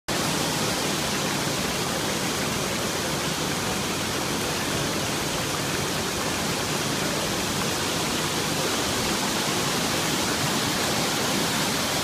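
Artificial pool waterfall pouring into the pool with a steady rushing splash.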